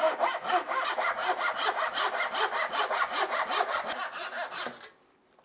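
Handsaw cutting through a plywood board in quick, even strokes, about seven a second, stopping abruptly about five seconds in as the cut is finished.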